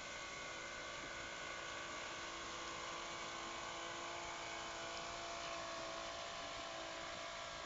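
Radio-controlled model boat's small electric motor running at full throttle: a steady whine over a faint hiss.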